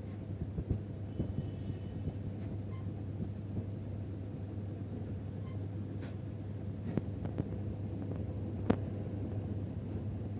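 Steady low hum of room background, with a few faint, short clicks and taps, the loudest a little under two-thirds of the way through.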